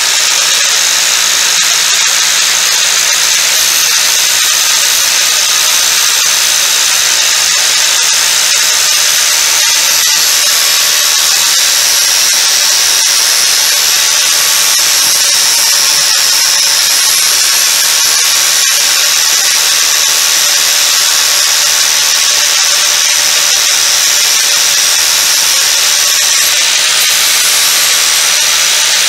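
A 4-inch angle grinder with a flap disc running steadily with a high whine, grinding away the end of a painted wooden trim board to cut a coped joint.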